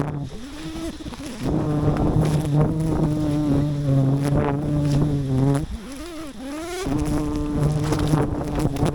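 Bees buzzing loudly close to the microphone: a steady droning hum that dips and swoops in pitch for about a second past the middle as bees fly by, then settles back into a steady drone.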